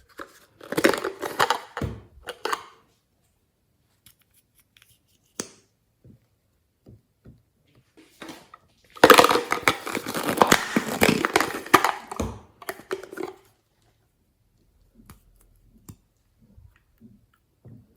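Slime being squished and stretched by hand, making wet, sticky crackling in two bursts of fine clicks: a short one about a second in and a longer, louder one from about nine to thirteen seconds in.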